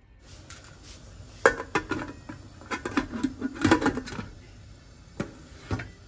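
Pots and kitchen utensils clinking and knocking against each other: a run of sharp clatters, busiest about one and a half seconds in and again around three and a half seconds, then a couple of single knocks near the end.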